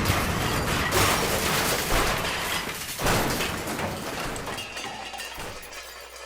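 A loud, rumbling crash-like noise with surges about one and three seconds in, fading away gradually.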